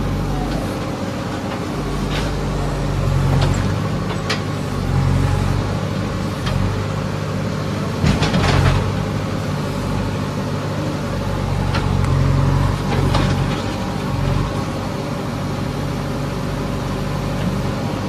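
JCB 3DX backhoe loader's diesel engine running under digging load, its level rising and falling as the hydraulic arm works. Several sharp knocks and clanks from the bucket and boom, the loudest cluster about eight seconds in.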